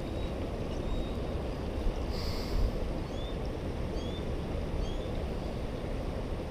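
Steady low outdoor rumble with a few faint, short bird chirps over it, about one a second from the middle on, and a brief higher buzz about two seconds in.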